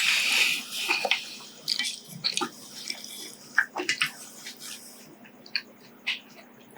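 Noodles slurped in a short hiss, then wet, sticky chewing and mouth smacks with scattered small clicks.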